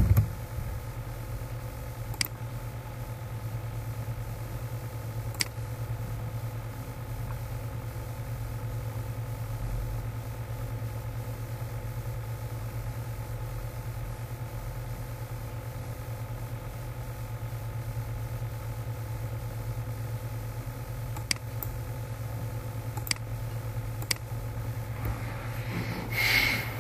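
Steady low hum with background hiss, broken by a handful of short, sharp single clicks spread through it.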